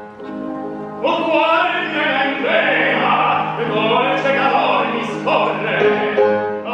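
A piano plays alone for about a second, then an operatic tenor voice sings over the piano accompaniment.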